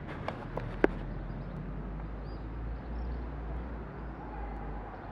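Outdoor background sound with a steady low rumble and a few sharp clicks in the first second, the loudest just under a second in.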